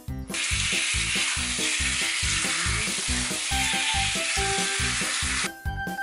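Handheld shower head spraying water onto a small dog's coat in a bathtub: a steady hiss that starts just after the beginning and cuts off shortly before the end. Background music with a steady beat runs underneath.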